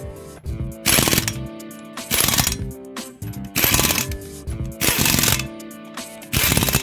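Background music with a steady beat: loud, sharp hits about every second and a half over sustained notes.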